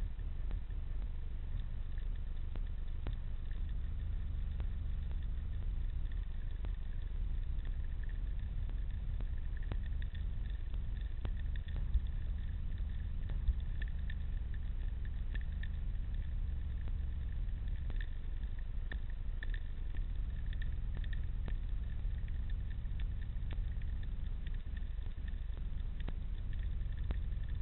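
Underwater ambience picked up by a camera in a waterproof housing: a steady low rumble of water, with scattered faint clicks and crackles. Two sharper clicks about a second and a half apart near the middle.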